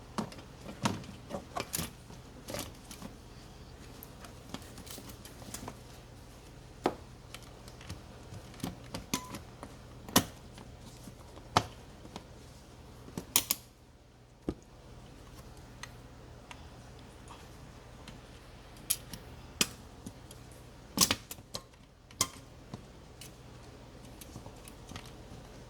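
Irregular sharp metallic clicks and clinks of hand tools and fasteners being handled during car battery work, over a faint steady low hum.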